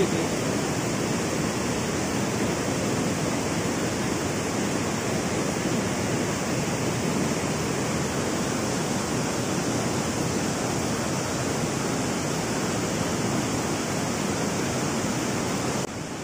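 Steady rushing noise of running water, even in level, dropping suddenly a little near the end.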